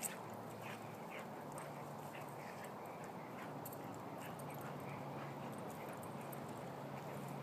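Two dogs play-fighting on grass: a run of short, irregular mouthing and scuffling noises several times a second. A low, steady hum underneath.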